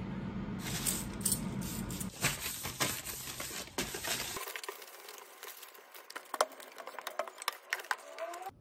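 Cleaning a glass induction cooktop: a string of light clicks and knocks from a trigger spray bottle of alcohol cleaner and a hand wiping the glass top with a cloth.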